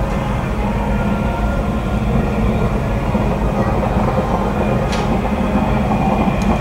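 Outboard engine of a ski race boat running flat out as it passes at speed, a steady drone that grows slightly louder.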